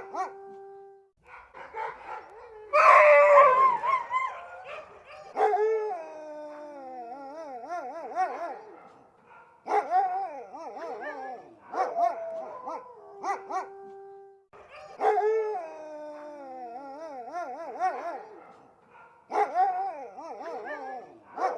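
Siberian huskies barking and howling: short barks mixed with long howls whose pitch wavers and bends up and down. The loudest burst of barking comes about three seconds in, and the same run of howls comes round again about ten seconds later.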